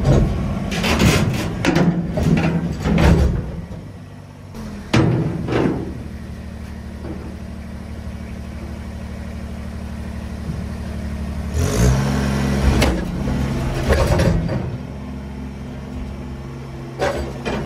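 Kubota BX23S compact tractor's three-cylinder diesel engine running steadily, louder for a stretch about twelve to fourteen seconds in. Several sharp knocks and clanks in the first three seconds and again around five seconds in.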